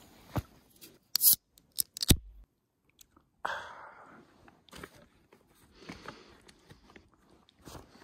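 An aluminium soda can handled with clicks and crackles, then cracked open about three and a half seconds in, its pull tab letting out a short fizzing hiss that fades within a second.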